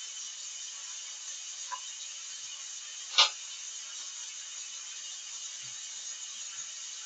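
A steady hiss with two short clicks: a faint one nearly two seconds in and a much louder, sharp one a little past the middle.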